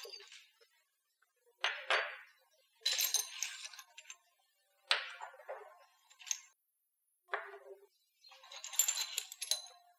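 Shards of a broken porcelain cup dropped one at a time onto a tabletop, four times: each lands with a sharp clink followed by a short rattle as the piece rocks and settles.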